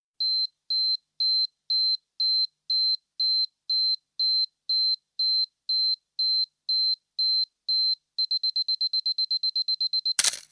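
Electronic countdown timer beeping: a single high tone in even beeps about two a second, which speed up to a rapid run of about eight a second near the end, then stop with a short sharp burst as the count hits zero.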